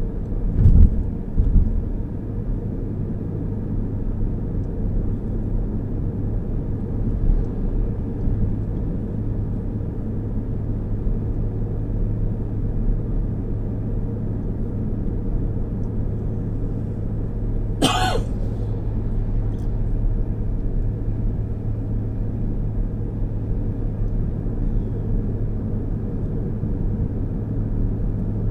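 Steady road and engine noise heard inside a moving car's cabin: a low hum with tyre rumble. A couple of low thumps come about a second in, and a single short, sharp click about two-thirds of the way through.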